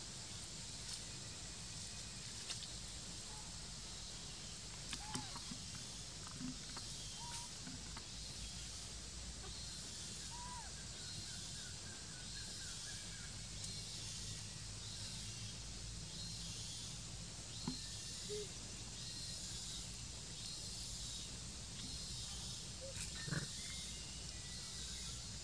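Quiet forest ambience: a steady high-pitched hiss over a low rumble, with a few faint short chirps, several of them around 5 to 11 seconds in, and scattered light clicks and rustles.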